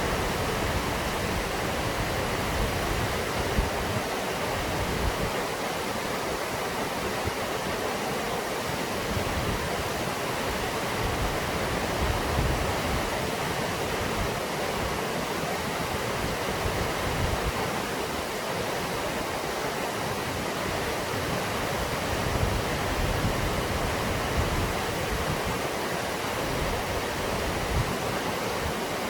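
Waterfall: a steady, full rush of falling water, with an uneven low rumble underneath.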